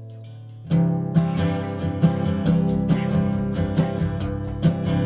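Background music: a held guitar chord fades out, then strummed acoustic guitar comes in under a second in and keeps a steady country rhythm.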